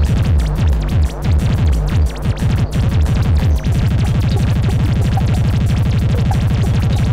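Hard electronic tekno played from a vinyl record. The heavy bass repeats falling-pitch drops, then a little past halfway changes to a fast, steady low throb with small high blips over it.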